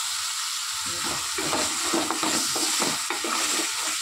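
Tomato, onion and green chilli masala sizzling in oil in a large metal pan. A wooden spoon stirs and scrapes against the pan in repeated strokes from about a second in.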